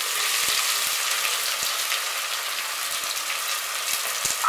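Sliced onions sizzling steadily as they fry in hot mustard oil in a pot.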